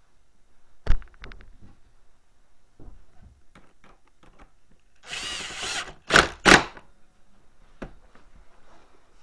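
Power driver spinning a body-panel fastener into a snowmobile for about a second, then two short, loud bursts as the fastener is driven home. A sharp knock about a second in, and small clicks of handling.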